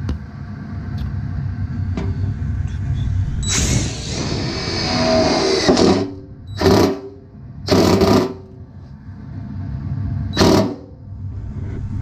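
Cordless drill with a step bit cutting through a furnace's sheet-metal door. A low running whir gives way, about three and a half seconds in, to a high metallic screech of the bit biting through the metal for about two seconds. Three short bursts of the drill follow.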